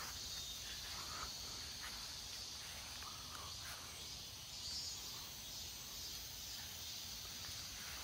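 Cicadas buzzing in a faint, steady, high-pitched chorus.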